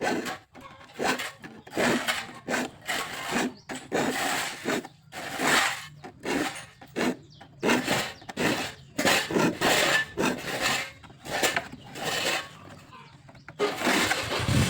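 Hand saw cutting a kapok (randu) wood board in rapid back-and-forth strokes, about two a second, with a short pause near the end.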